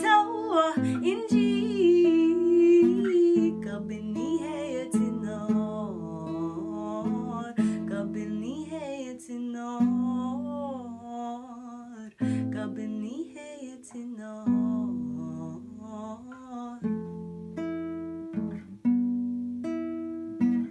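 A woman singing over a plucked nylon-string classical guitar. Over the last few seconds the voice drops out and the guitar plays alone, single plucked notes and chords ringing and fading.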